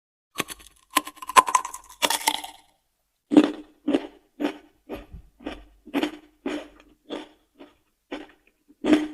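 Crisp crunching bites into a raw vegetable, then steady crunchy chewing at about two chews a second from about three seconds in.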